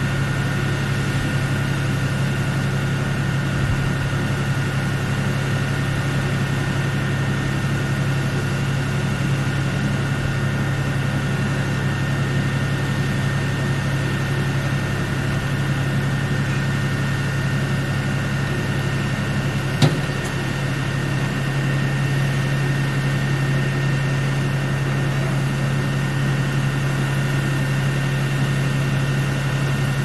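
Steady low mechanical drone with constant high whining tones over it, unchanging throughout; a single sharp click about twenty seconds in.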